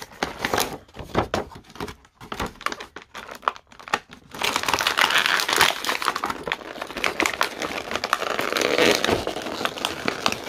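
Plastic action-figure packaging being opened: scattered sharp clicks and scrapes, then from about four seconds in, continuous crinkling and rustling of plastic.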